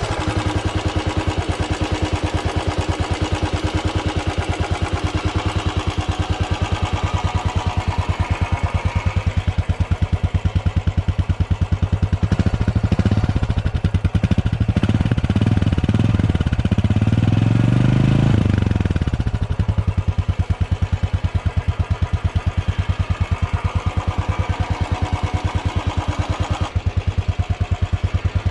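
Royal Enfield Classic air-cooled single-cylinder engine idling with its slow, even exhaust thump, revved several times around the middle, the pitch climbing and falling back each time.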